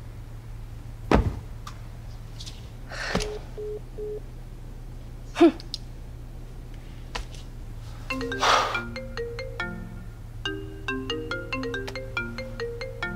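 Mobile phone ringtone, a repeating marimba-like melody of short notes, starts about eight seconds in and keeps ringing for an incoming call. Before it come a few knocks and rustles over a low steady hum.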